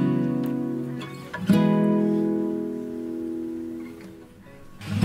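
Background music: acoustic guitar chords strummed three times, each left to ring and fade.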